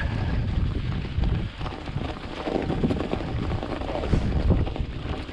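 Wind buffeting an action camera's microphone, a steady low rumbling gust noise that rises and falls.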